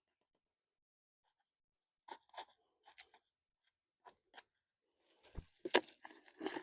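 Potting soil being scooped and pushed into a pot by hand: a few short gritty crunches starting about two seconds in, then a denser run of scraping and crunching near the end with a low thud and a sharp knock.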